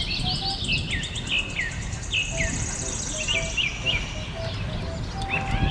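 Birds chirping in short falling calls, repeated every half second or so, with a high insect trill above them and a steady low rumble underneath.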